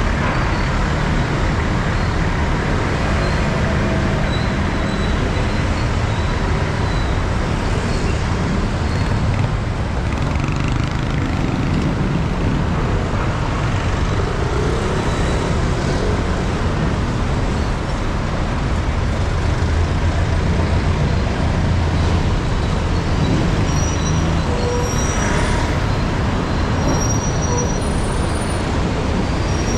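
Busy street traffic: motorcycles, cars and jeepneys running and passing close by in a steady, unbroken drone. A few short high squeaks sound near the end.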